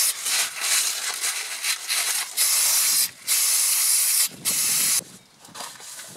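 Aerosol brake cleaner spraying in a run of hissing bursts of about a second each, blasting brake dust off the wheel-speed sensor ring. The spraying stops about five seconds in.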